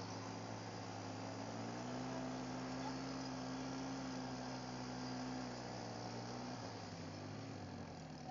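Quad bike engine running at a steady cruise, heard faintly. Its pitch rises slightly about two seconds in and eases back near the end.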